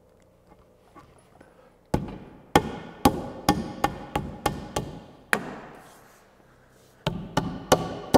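Sharp knocks on wood, about two a second: a 4x4 wooden top rail, cut slightly long for a tight fit, being knocked down into place between railing posts. Nine or so knocks start about two seconds in, stop for a moment, and start again near the end.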